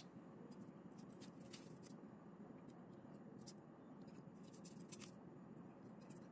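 Near silence: a low steady room hum, with a few faint scattered ticks and rustles of the plastic biscuit wrappers as wooden ice-cream sticks are pushed into them.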